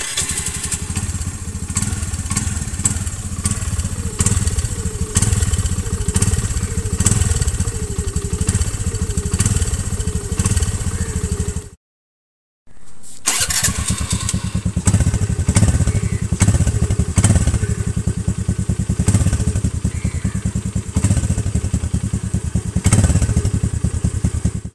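Honda Dio scooter's single-cylinder engine running through its stock Honda silencer. After a break of about a second halfway through, it runs through an aftermarket modified silencer.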